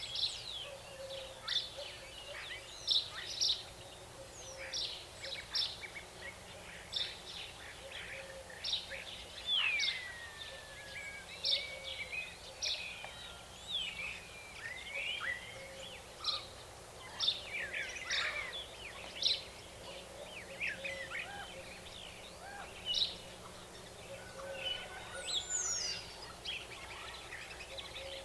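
Nature ambience of many birds calling and singing: short repeated chirps and several whistles that glide down in pitch, over a faint steady background hiss.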